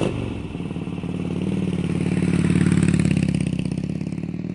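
Motorcycle engine running with a low, pulsing rumble. It grows louder to a peak about halfway through, then eases off a little.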